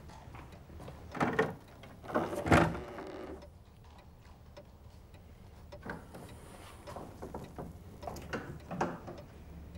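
An interior door being unlatched and opened, with two clunks about one and two and a half seconds in, the second the louder. Faint small clicks follow.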